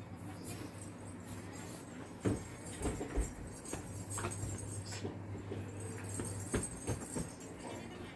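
A dog wrestling and shaking stuffed toys on a bed: soft thumps and fabric rustling, the loudest thumps about two to three seconds in and again near seven seconds, over a steady low hum.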